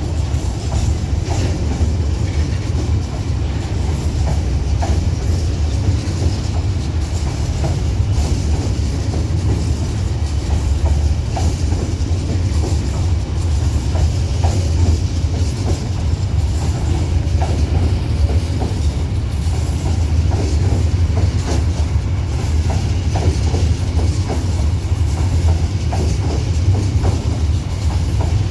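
Long Babaranjang coal train's wagons rolling past at steady speed, a continuous low rumble with wheels clacking over the rail joints.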